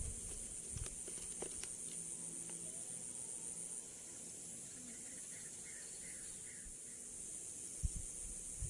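A steady, high-pitched chorus of insects buzzing, which drops in level about four seconds in, with a few faint clicks in the first half.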